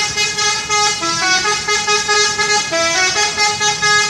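Indonesian bus 'telolet' horn, a multi-tone musical horn playing a rapid tune of stepped notes. The short phrase starts over about every second and a half.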